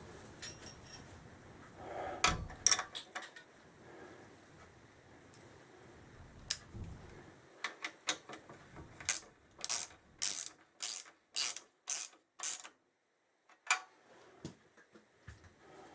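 Socket ratchet wrench clicking, worked in short strokes at about two a second through the second half, after a few scattered clicks and a knock of tools.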